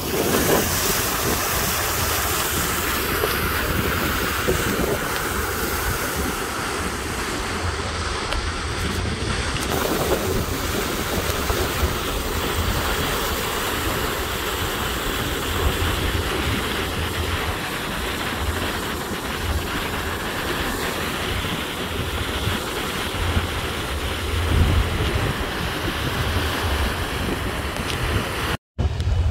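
Steady wind buffeting the microphone on the deck of the MV Coho ferry under way, over water rushing along the hull, with a low rumble beneath. The sound drops out for a moment near the end.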